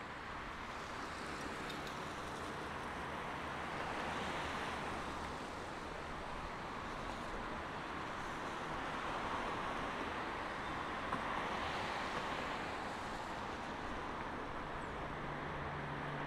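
City traffic on rain-wet asphalt: car tyres hissing past, swelling as vehicles go by about four seconds in and again near the twelve-second mark.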